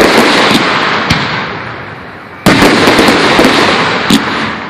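Aerial fireworks bursting: sharp bangs, each followed by a long crackling hiss that fades, with the biggest burst about halfway through and a smaller bang near the end.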